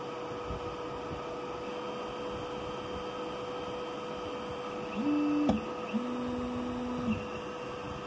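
Voxelab Proxima 6 resin printer running with a steady fan hum. About five seconds in, its Z-axis stepper motor gives a short whine with a click, then a longer, lower whine: the build plate lifting and lowering between layers.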